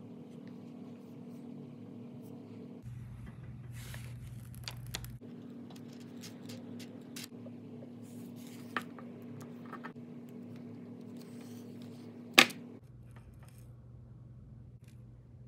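Hands handling a clear acrylic alignment gauge and RC truck parts: scattered light clicks and taps, with one sharp click about twelve seconds in, over a steady low hum.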